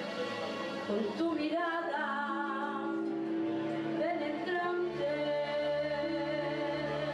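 Women singing a worship song over long held instrument chords that change about two and five seconds in.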